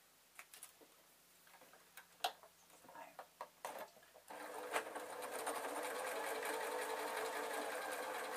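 A few scattered clicks and taps, then about four seconds in an electric sewing machine starts and runs steadily, stitching.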